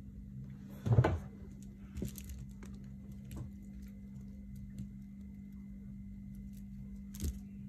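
Handling sounds of a pearl-beaded bag as fishing line is worked back through its beads: scattered light clicks and rustles, with a louder bump about a second in and another near the end, over a steady low hum.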